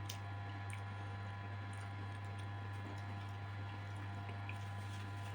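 A steady low hum, with a few faint, wet mouth clicks of chewing scattered through it.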